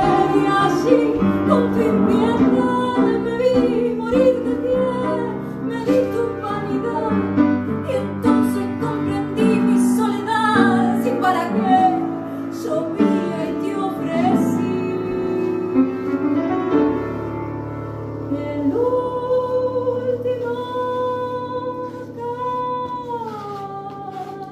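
A woman singing a tango live with instrumental accompaniment. In the last few seconds the music grows quieter and settles into long held notes.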